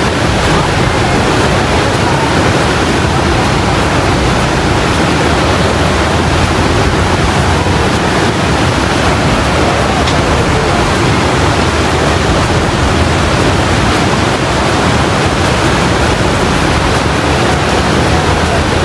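Loud, steady rushing of the Niagara River's whitewater rapids near the falls, an even, unbroken wash of water noise.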